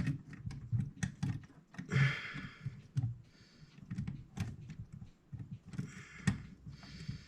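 Small irregular clicks and taps of metal clock-movement parts being handled and fitted, as the cam wheel is worked into line with the count arm, with a few brief rustles in between.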